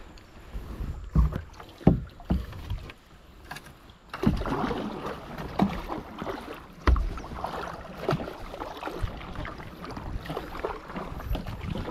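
Kayak paddle strokes in river water: a few dull knocks in the first seconds, then from about four seconds in a steadier rush of water with repeated splashes.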